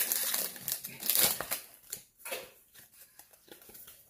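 Foil wrapper of a Pokémon TCG booster pack crinkling as it is torn open, loudest over the first second and a half, then a few softer rustles as the cards come out.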